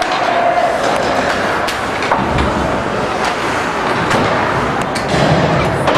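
Ice hockey rink din: a steady wash of crowd and rink noise, broken by sharp clacks of sticks and puck.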